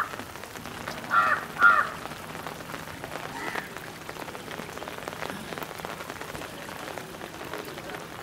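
A crow cawing: two quick caws about a second in, then a fainter one a couple of seconds later, over a steady hiss.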